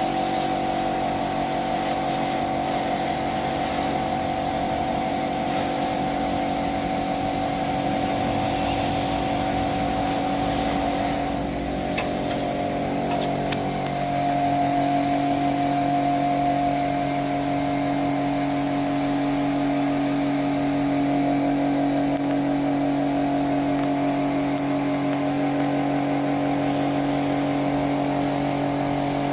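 A motor running steadily with a constant hum, its tone shifting slightly about halfway through and then holding steady.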